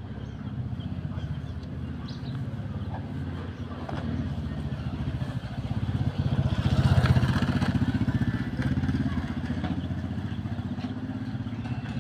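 A motor vehicle engine running close by, a low pulsing sound that swells to its loudest a little past halfway and then eases off.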